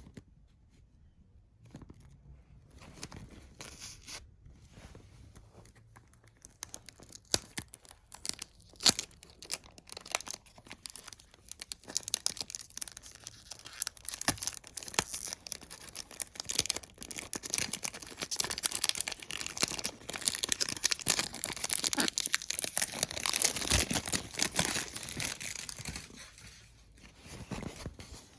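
Thin plastic wrapping being torn and crinkled off a perfume box: irregular crackling and rustling, sparse at first and busier and louder through the middle.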